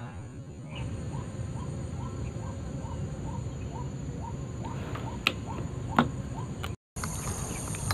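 Air rifle shot, a sharp crack about six seconds in, with a softer click just before it. Earlier, short rising bird calls repeat about three times a second.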